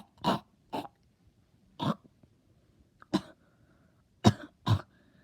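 A person coughing over and over: about six short, sharp coughs with brief silences between them, some coming in quick pairs.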